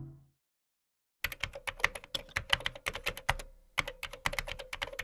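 Music fading out, then after about a second a fast run of keyboard typing clicks, a typing sound effect for text appearing letter by letter, with a short pause partway through.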